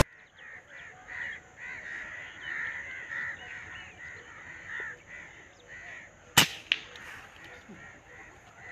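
Birds calling over and over in the background, then a single sharp crack of an Artemis P10 PCP air rifle firing about six and a half seconds in, followed a third of a second later by a second, quieter crack.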